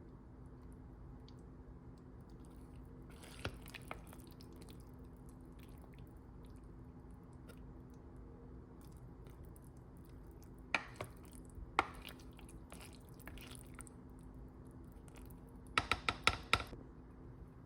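Faint steady room hum with a few scattered small clicks and taps, then a quick run of several taps near the end.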